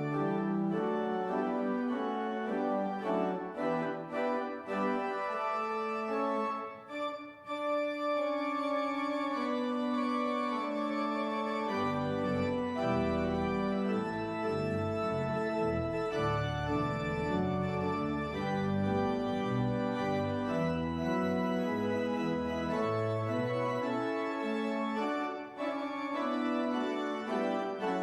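Church organ playing held chords of a service prelude. Deep pedal bass notes join about twelve seconds in and drop out again about twelve seconds later.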